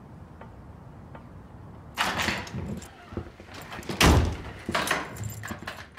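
A door being opened about two seconds in and then shut with one heavy thud about four seconds in, with shuffling and scraping around it.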